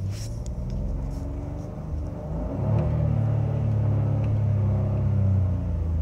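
Renault Clio's R-Sound Effect playing a synthesized sport-engine note through the cabin speakers as the stationary car is revved. The note climbs about two and a half seconds in, holds high, then drops back near the end.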